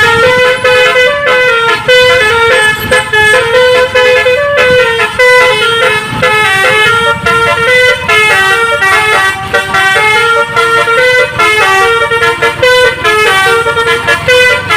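Basuri multi-tone 'telolet' vehicle horn playing a tune: a quick run of held horn notes stepping up and down in pitch, sounding without a break.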